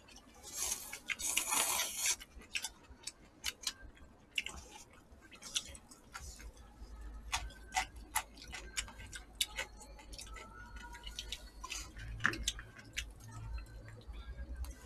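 Eating sounds at a table: chopsticks clicking and tapping against plastic takeout bowls, many short irregular ticks, with a hissing noodle slurp in the first couple of seconds.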